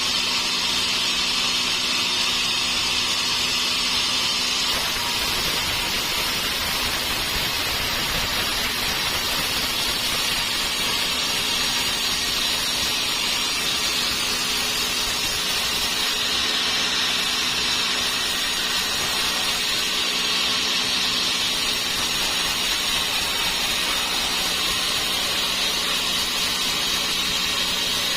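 Sawmill saw cutting dry teak, running steadily with a constant hiss and a steady motor hum underneath.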